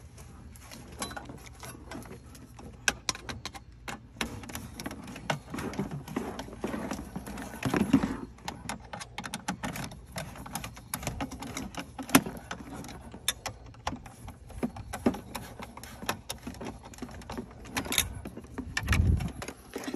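Car stereo wiring connectors and cables being handled: scattered plastic clicks and knocks with rustling in between, and a dull thump near the end.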